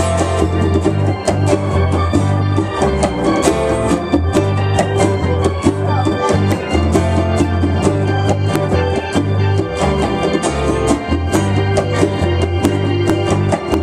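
Live band playing an instrumental passage with no singing: acoustic guitars, electric guitar and hand drums over a bass line that moves every second or so, with sustained chords and frequent sharp drum hits.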